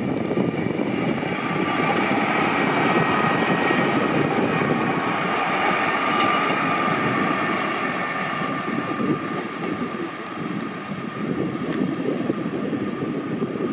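Northern Class 150 'Sprinter' diesel multiple unit passing close by: its underfloor diesel engines running under a steady whine, with the wheels rumbling on the track. It is loudest a few seconds in as it passes and eases off a little as it pulls away.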